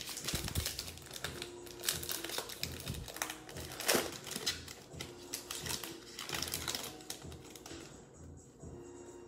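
Foil trading-card pack wrapper crinkling and tearing as it is ripped open, with the cards rustling, dying down about eight seconds in. Background music with a steady beat runs underneath.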